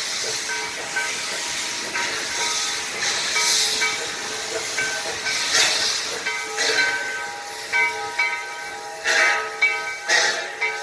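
Steam locomotive hissing steadily as it vents steam, with louder surges of hiss every second or two.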